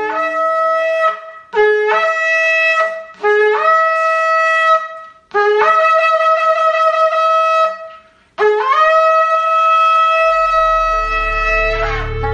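Shofar sounded in a series of blasts, about five, each stepping up from a low note to a higher held note, the last two held longer than the rest. A low, steady music bed comes in underneath near the end.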